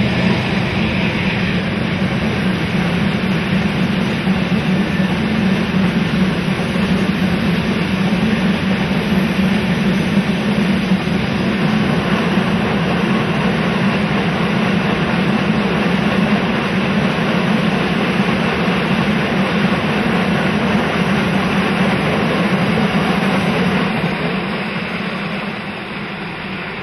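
Freight train's container wagons rolling past, a steady rumble and clatter of steel wheels on the rails that fades over the last few seconds as the end of the train goes by.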